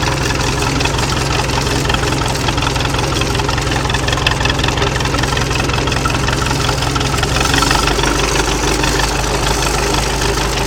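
Massey Ferguson 130 tractor's four-cylinder diesel engine running steadily as the tractor drives off at low speed. The engine note shifts about three-quarters of the way through.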